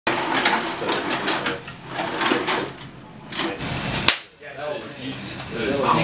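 A small group of people laughing and cheering, with quick sharp claps through the first couple of seconds and one sharp click about four seconds in.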